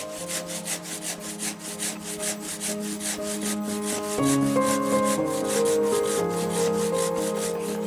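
Handsaw cutting through stone in quick, even rasping strokes, about five a second, with background music playing over it.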